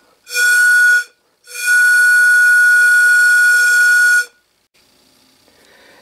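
A small homemade brass-tube steam whistle, its open end plugged by a fingertip and blown by mouth as a test, gives two steady whistle blasts: a short one, then a longer one of nearly three seconds.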